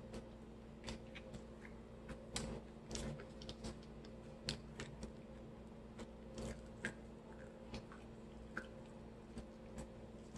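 Food and its packaging being handled close to the microphone: irregular small clicks and crinkles over a low steady hum.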